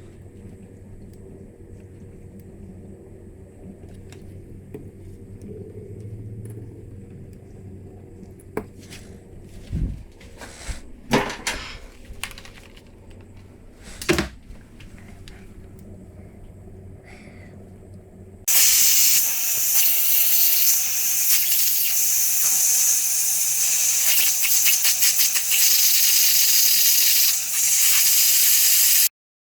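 A few scattered knocks and clicks over a low background hum, then a loud steady hiss of spray that starts suddenly about two-thirds of the way through and cuts off abruptly near the end.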